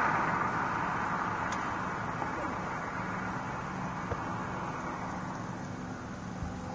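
A road vehicle's noise fading away after it has passed, over a steady low engine hum, with a couple of faint pops.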